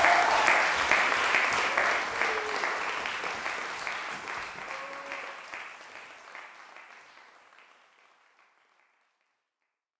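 Audience applauding, a dense patter of many hands clapping that fades away steadily to silence about nine seconds in.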